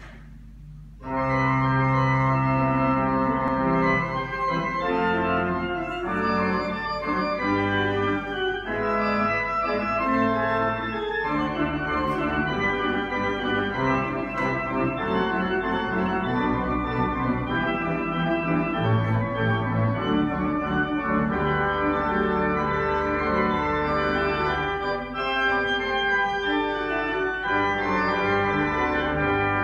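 Willis pipe organ playing a piece of sustained chords over low bass notes; the music starts suddenly about a second in.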